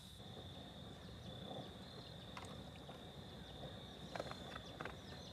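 Quiet wet handling sounds of raw beaver meat being turned in its marinade in a foil pan, with a few light clicks as a plastic seasoning bottle is picked up and handled in the second half. A steady high insect drone runs behind.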